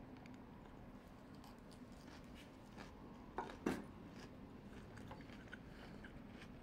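Metal fork picking salad from a plate: faint small clicks and scrapes, with two sharper knocks close together a little over three seconds in.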